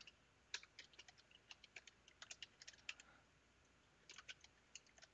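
Faint computer keyboard typing: quick runs of keystroke clicks, with a pause of about a second past the middle before the typing resumes.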